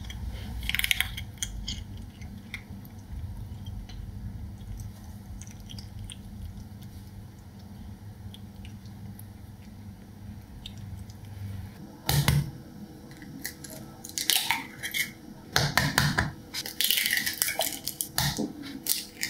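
A kitten eating from a ceramic bowl, chewing and crunching its food with small clicks against the bowl. About twelve seconds in it changes to three sharp knocks of eggs being cracked, a few seconds apart, and dropped into a glass jug, with light clinks of glass between them.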